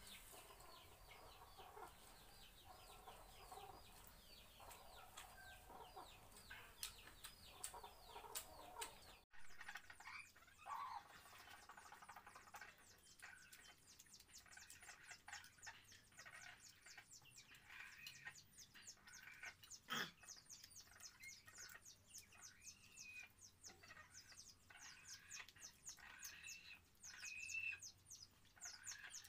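Faint chickens clucking and small birds chirping, with a rapid high ticking throughout. A single sharp click about twenty seconds in.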